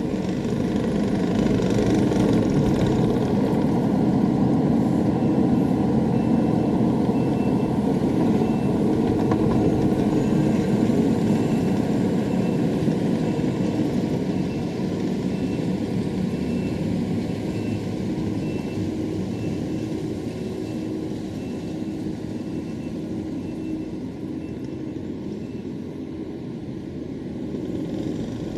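Engine of a bucket machine running steadily while shaping gravel, with its reversing alarm beeping at a steady pace from about five seconds in until near the end.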